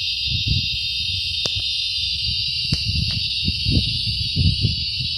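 Steady high-pitched drone of insects, with irregular low rumbling thumps on the microphone and a few sharp clicks.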